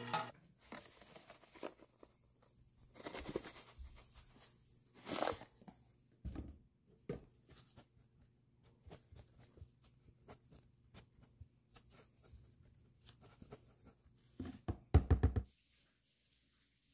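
Food-preparation handling noises from a plastic tub: scattered light knocks, clicks and rustles, with a short burst of loud rapid knocks near the end.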